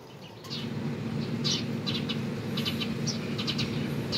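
Birds chirping in short, repeated calls over a steady low hum that comes in about half a second in.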